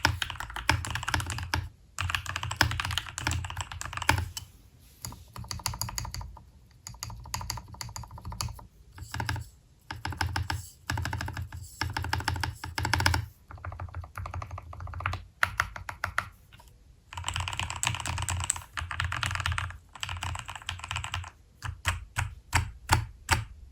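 Mechanical keyboard fitted with lubed Glorious Lynx linear switches being typed on in fast bursts with short pauses, with a quieter, sparser stretch past the middle and single separate keystrokes near the end.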